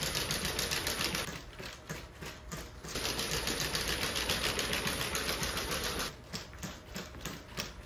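Unitree Go1 quadruped robot's feet tapping rapidly on a hard floor as it walks, a quick clatter that is loud for the first second and again from about three to six seconds in, and softer in between and near the end. The loud clatter is the footfall noise of the default walking controller.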